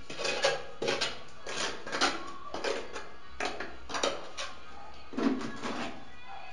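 Trowel scooping tile adhesive from a bucket and spreading it onto the back of a ceramic tile: a run of short scrapes and slaps, roughly two a second and unevenly spaced.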